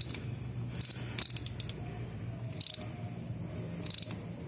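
Ratchet wrench turning a pushrod motorcycle engine over by hand at the crank nut, its pawl clicking in about four short bursts on the return strokes. The engine is being rotated to bring the piston to top dead centre on the compression stroke for a valve adjustment.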